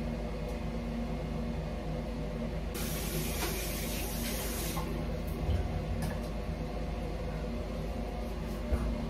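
Bathroom sink tap running for about two seconds, starting about three seconds in, water splashing into the basin. A few light knocks follow, over a steady low hum.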